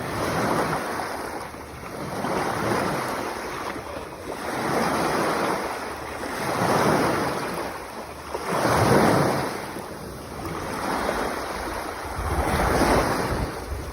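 Mediterranean sea waves surging and washing in. There is one swell of sound about every two seconds, and the strongest comes about nine seconds in.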